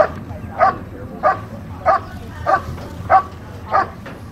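German Shepherd barking steadily at a helper standing in a protection blind, about one and a half sharp barks a second in an even rhythm: the hold-and-bark at the blind.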